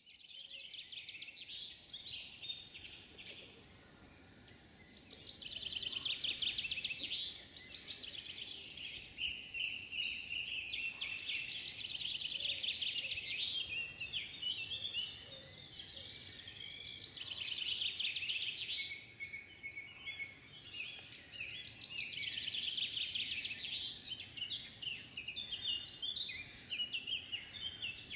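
Woodland dawn chorus: many songbirds singing at once, with rapid trills and warbling phrases overlapping continuously.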